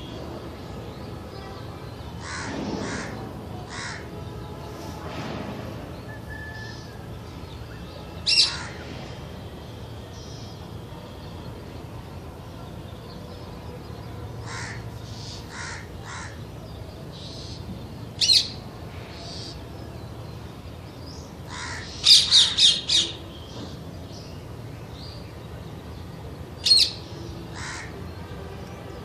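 Parakeet screeching: sharp single calls about 8 and 18 seconds in, a rapid run of about six screeches around 22 seconds, another near the end, and softer calls between them.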